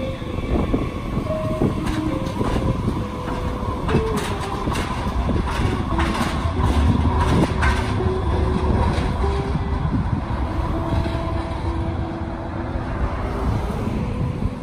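Muni light rail train rolling through a street-track junction with a low rumble. Its wheels click sharply over the rail joints and crossings, most densely in the middle of the pass, with short whines throughout.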